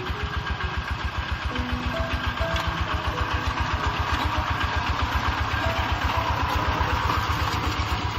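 Siam Kubota NC131 single-cylinder diesel engine running steadily, with an even, rapid low beat of about eight pulses a second. A simple electronic melody plays faintly over it.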